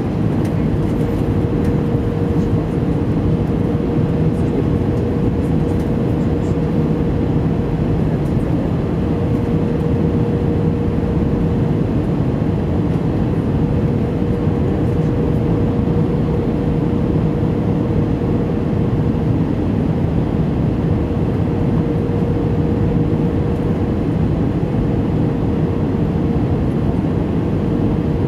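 Cabin noise inside an Airbus A320 on final approach: steady engine drone and rushing airflow, with a constant mid-pitched hum running through it.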